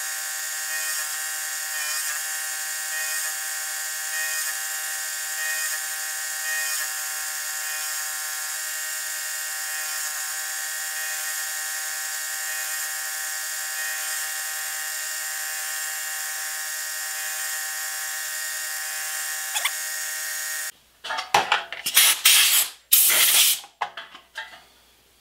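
Milling machine end mill cutting a metal part clamped in a vise: a steady cutting whine made of many fixed tones, which stops suddenly about four seconds before the end. After it come several loud, short bursts of noise as the part is handled in the vise.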